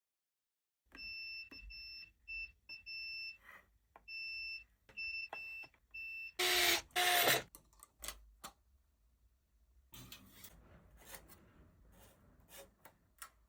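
A series of short, high electronic beeps in uneven groups, then two loud noisy bursts about six and a half seconds in, followed by scattered clicks.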